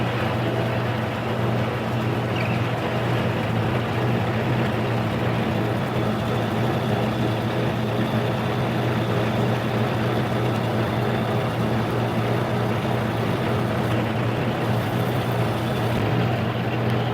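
Harbor Freight mini lathe, driven by an upgraded 1 horsepower AC motor, running steadily under load while turning a 100-thousandths cut off the diameter: a constant low motor hum with cutting noise over it. The pitch holds level throughout, so the motor is not bogging down under the heavy cut.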